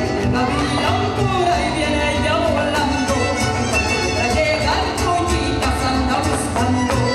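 Mexican mariachi music with violins, and a voice singing over the strummed accompaniment.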